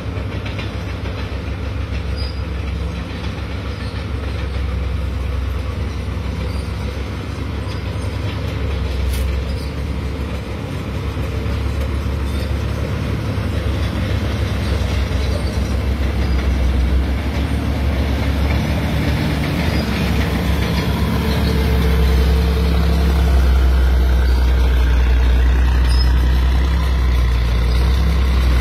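Diesel engines of a loaded log truck and the crawler bulldozer pushing it up a steep dirt grade, both working hard: a heavy, steady low rumble that grows louder about two-thirds of the way in as the dozer comes close.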